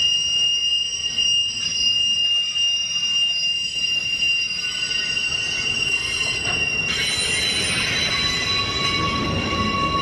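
Freight train of autorack cars rolling past, its steel wheels squealing in steady high-pitched tones over the rolling rumble. About seven seconds in the squeal shifts to a different set of pitches, and a lower squealing tone joins near the end.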